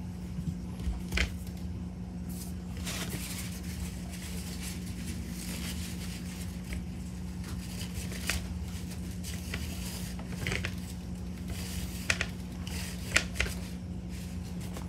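Scattered clicks and light knocks from hands handling an air rifle's metal parts and bottle adapter, over a steady low hum.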